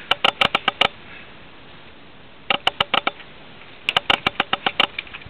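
Fishing reel clicking in three short bursts of rapid, evenly spaced clicks, several a second, about a second apart, with a steady low background between.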